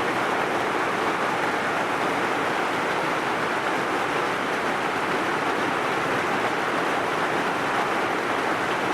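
Heavy rain falling steadily, an even hiss with no single drops standing out.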